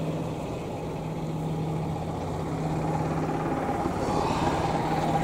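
Twin radial piston engines of a Douglas DC-3 Dakota in flight, a steady low drone as the aircraft climbs away. A higher note comes up about four seconds in.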